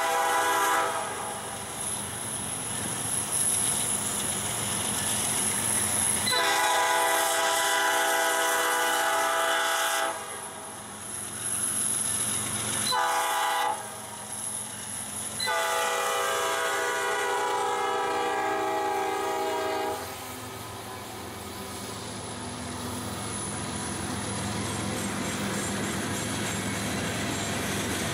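Freight locomotive air horn sounding as the train approaches. The tail of one blast, then a long blast, a short one and a final long one, in the long-long-short-long pattern of a grade-crossing signal. After the last blast, the two diesel locomotives pass and the steady rumble and clatter of the freight cars rolling by takes over.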